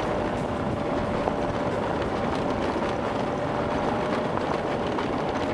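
Scooter engine running at steady revs during a ride, a constant drone with a steady rush of road and wind noise beneath it.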